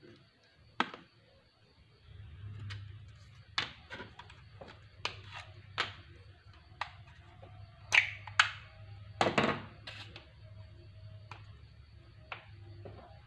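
Small objects being handled on a workbench cutting mat: a scattered run of light clicks, taps and knocks as a plastic battery case and a balsa model glider are picked up and set down. The loudest knocks come in a pair about eight seconds in and a short cluster about a second later. A low steady hum sits underneath from about two seconds in.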